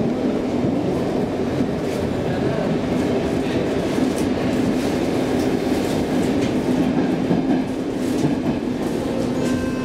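Stockholm Metro C15 train running, heard from inside the carriage: a steady rumble of wheels and traction with a low, even hum and occasional clicks over the rails.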